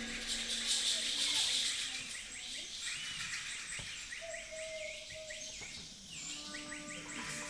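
A wind band playing jungle sound effects in a quiet passage: many quick bird-like chirps and whistles over a hiss that fades in the first two seconds, with a few held notes.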